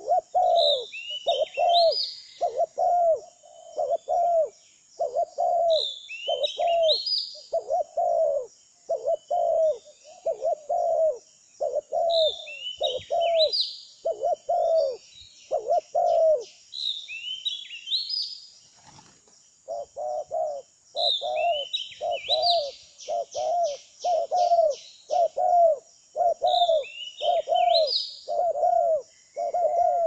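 Spotted dove (tekukur) cooing in a steady run of short low coos, about two a second, broken by a pause of about three seconds two-thirds of the way through. Short bursts of high bird chirping come in every few seconds over it.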